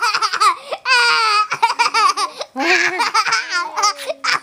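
A young boy laughing hard as he is tickled, in rapid high-pitched bursts.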